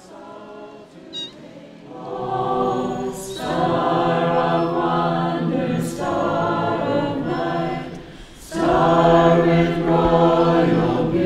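Music: a choir singing slow, long-held chords in three phrases, coming in about two seconds in after a quieter start.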